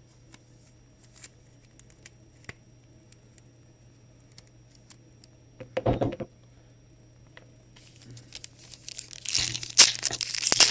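Faint clicks of cards being handled and a short thump about six seconds in, then from about eight seconds a trading-card pack's wrapper crinkling and tearing open, loudest near the end.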